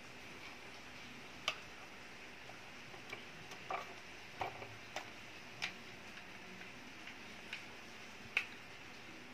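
Faint steady hiss with sparse, irregular sharp clicks, about eight in all, the loudest about one and a half seconds in and near the end.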